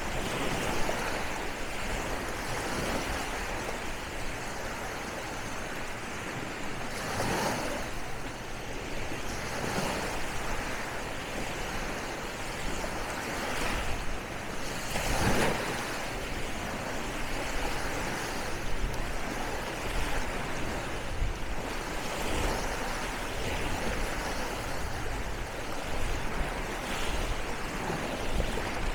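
Small sea waves washing up onto a sandy shore: a steady hiss that swells louder every few seconds, strongest about halfway through.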